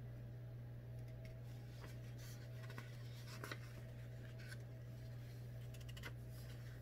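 Faint rustling and crackling of paper booklet pages being handled and flipped, in a series of short scrapes, over a steady low hum.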